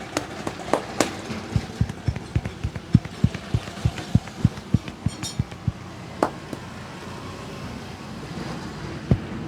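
A barber's hands slapping a client in a rhythmic percussive massage: dull thuds about four a second for some four seconds, after a few sharp clicks, with a single thud near the end. Steady street traffic runs behind.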